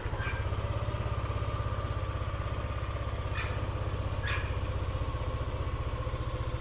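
Yamaha Aerox 155 scooter's single-cylinder four-stroke engine idling steadily with an even low pulse.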